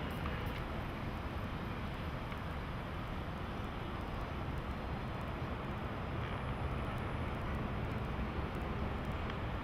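Steady outdoor background noise, a constant low rumble with hiss above it and no distinct events.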